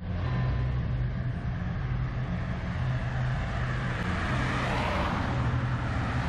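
Road traffic: cars driving past on a multi-lane street, with tyre and engine noise swelling as a car passes close about four seconds in. Beneath it runs a steady low engine hum.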